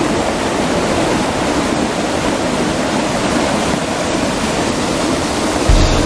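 Stream water rushing over rocks in a small cascade, a steady loud rush. A low rumble comes in near the end.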